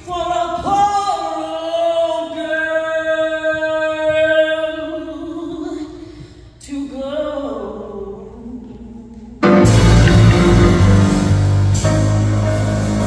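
A woman's solo voice sings a slow blues phrase, holding a long note with vibrato. About nine and a half seconds in, a loud accompaniment with piano comes in abruptly.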